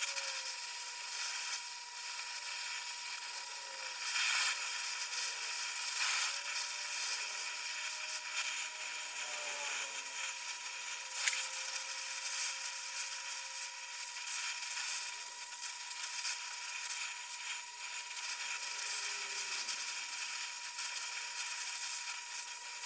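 Oxy-fuel welding torch with a large number 5 tip burning steadily, its flame giving a constant hiss as it heats a cast-iron lathe tailstock for brazing. A faint steady whistle runs under the hiss, and a few light clicks come through.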